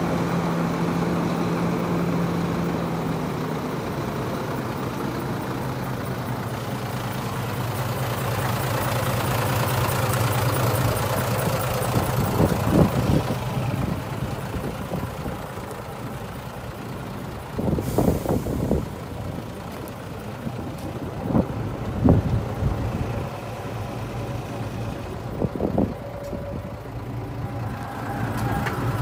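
Mitsubishi Fuso Mignon dump truck's 6D16 straight-six diesel idling steadily, its pitch settling slightly lower a few seconds in. Several short, sharp noises come at intervals over the idle.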